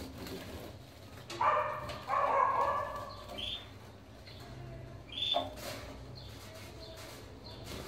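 Caged canaries bathing and fluttering in a clip-on plastic bath, with short chirps. A louder bark-like call rings out about a second and a half in and lasts a second and a half, and a shorter one comes a little past five seconds.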